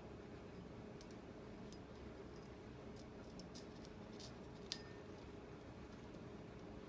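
A budgerigar sneezing once, a tiny sharp sneeze a little over two-thirds of the way in, with a few faint small ticks before it over a steady low room hum.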